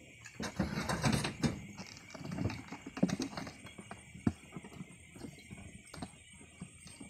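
Live rice eels being shaken out of a white plastic jerrycan into a plastic crate: a run of knocks and rattles of the eels and container, busiest in the first three seconds or so, then scattered clicks.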